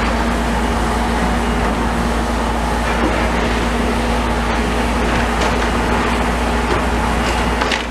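Demolition excavator's diesel engine running steadily, a constant hum, with a couple of faint clicks near the end.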